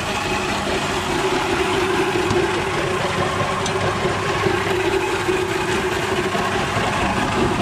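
Sapphire washing plant running steadily: an even mechanical drone with a held hum.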